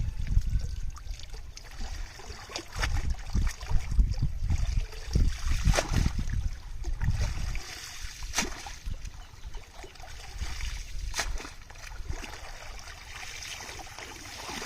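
Pond water splashing and trickling, with scattered sharp splashes. A low rumble fades out about halfway through.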